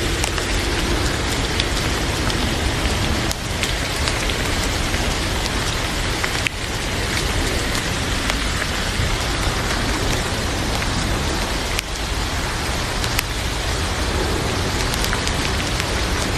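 Steady rain falling: an even hiss of rain on a surface, with a few sharper drop ticks.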